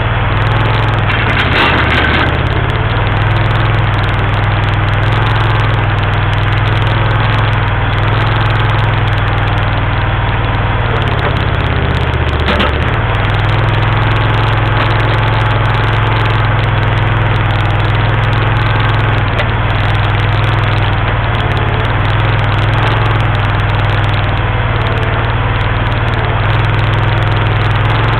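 Terramite T7 mini backhoe's engine running steadily. Its note shifts briefly with a short noisier moment about two seconds in and again about twelve seconds in.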